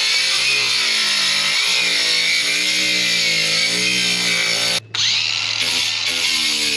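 Ryobi cordless angle grinder with a cutting disc running under load as it cuts through the temporary deck, its motor pitch wavering as the load changes. It cuts out for a split second just under five seconds in, then runs on.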